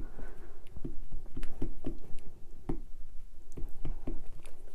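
Rubber or clear stamp dabbed again and again on a Memento ink pad to ink it, giving a run of light, irregular taps, with paper and tool handling on the craft table.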